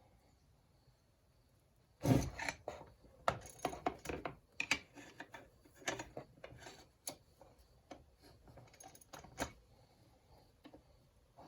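Clicks, knocks and rattles of hand tools and small chainsaw parts being handled and fitted during reassembly, a busy run of them starting about two seconds in and dying away near the end.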